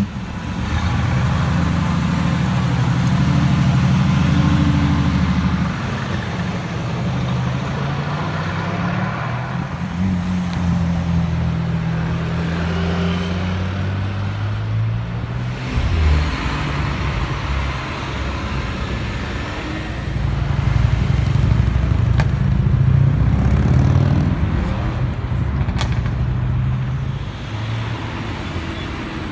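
Supercar engines driving by on a city street, one car after another, their low engine notes rising and falling against traffic noise. The sound grows louder for a few seconds about two-thirds of the way through.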